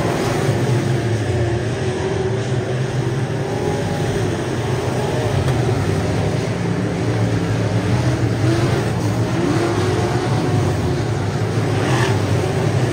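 Several dirt-track race cars running flat out around a dirt oval. Their engines blend into one continuous loud drone, with the pitch wavering up and down as cars pass and work through the turns.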